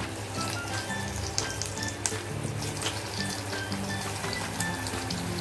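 Breadcrumb-coated potato cheese balls deep-frying in hot oil, a steady sizzle with many sharp crackles, over light background music.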